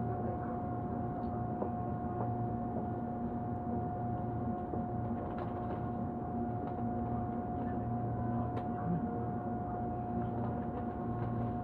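Steady interior noise of a Tobu Urban Park Line commuter train carriage: a constant low hum under a steady high tone, with a few light knocks and rattles.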